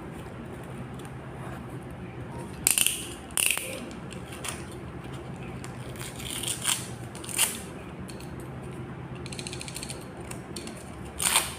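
Handling noises: several short rustling or scraping sounds and, a little after halfway, a brief run of rapid ratchet-like clicks, over a steady low hum.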